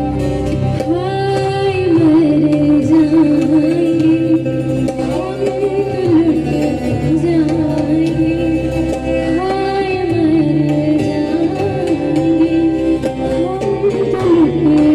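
A woman singing a slow, ornamented Hindi melody live, accompanied by tabla and string and keyboard instruments; the voice comes in about a second in over the accompaniment.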